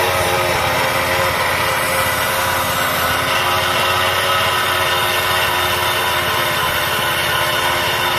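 Metro motorcycle engine running steadily, driving a belt-driven grinding wheel mounted over the fuel tank.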